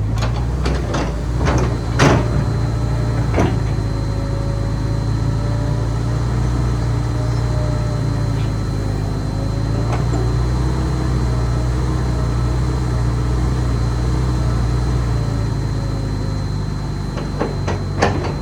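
Hitachi ZX250-5 excavator's diesel engine and hydraulics running steadily under operation, with a few sharp knocks and clunks in the first few seconds and again near the end. The engine will not run up to full speed, which the seller puts down to a diesel particulate filter that needs a regeneration.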